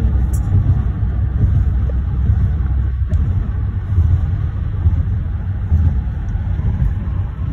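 Steady low road-and-engine rumble heard inside a moving car.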